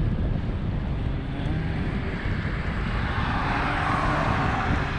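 Wind rumbling on the microphone of a camera riding along on a bicycle. A broader rushing hiss swells up about three seconds in and eases off near the end.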